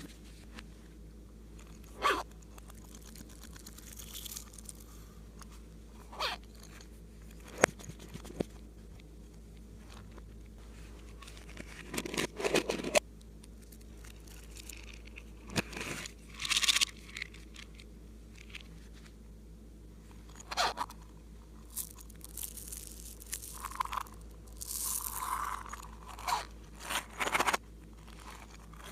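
Clay slime being squeezed and worked by hand, giving irregular crackles, pops and short squishy bursts.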